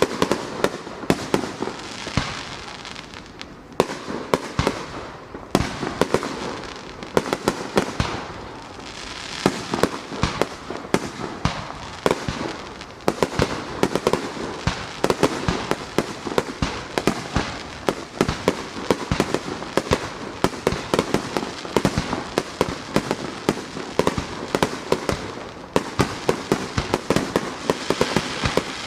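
Aerial fireworks bursting in quick succession: dozens of sharp bangs, several a second, over a continuous crackling hiss, with a few short lulls.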